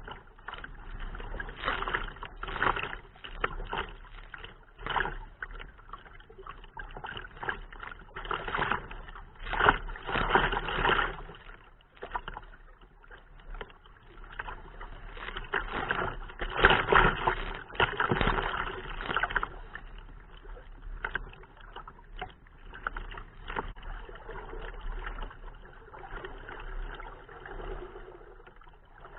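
Wind buffeting the microphone in irregular gusts, with choppy water splashing and lapping against a kayak's hull.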